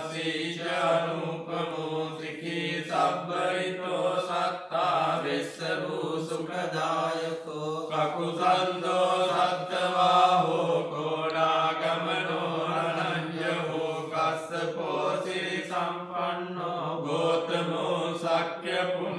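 Theravada Buddhist monks chanting Pali pirith verses together, several male voices holding a steady low pitch.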